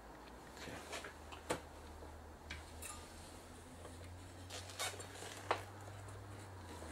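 A few sharp metallic clicks and small scrapes from a screwdriver levering a desoldered IPM module and its heatsink off a plasma TV's Y-sustain circuit board, over a low steady hum.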